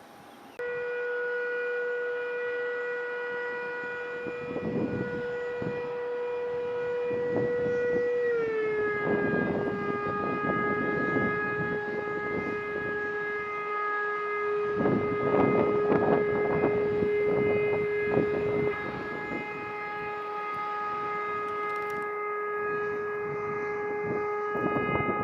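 Steady high-pitched whine of an aircraft's jet engine, a single tone with overtones over a gusty rush. Its pitch steps down slightly about eight seconds in, as the engine power changes.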